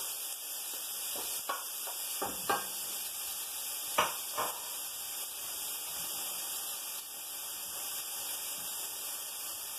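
Diced onion sautéing in olive oil in an aluminium pot, a steady sizzle, with a few faint knocks, the clearest about four seconds in.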